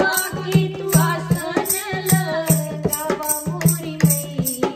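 Women's voices singing a Bhojpuri devotional song to the goddess (devi geet) over a steady dholak drum beat.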